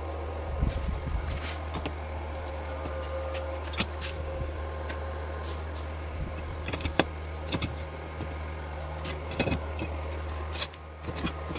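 A steady low hum, with scattered light taps and clicks of a marker and steel rule against a thin steel square tube while lines are drawn on it.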